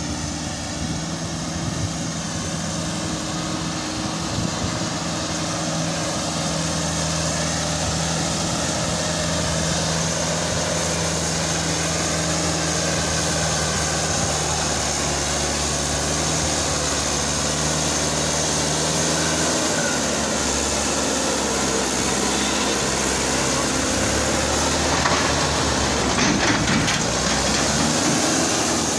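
Mahindra diesel tractor engine running steadily while working hard to pull a heavily loaded soil trolley, enough to lift its front wheels. Its note shifts lower about two-thirds of the way through.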